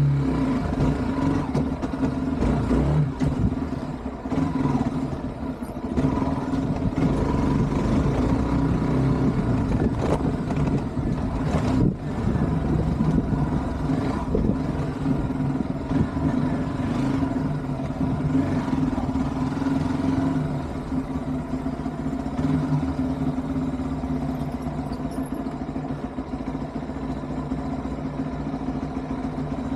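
Hero Xpulse 200 motorcycle's single-cylinder engine running at a fairly steady pitch, loud and even, with brief dips in level about four and twelve seconds in.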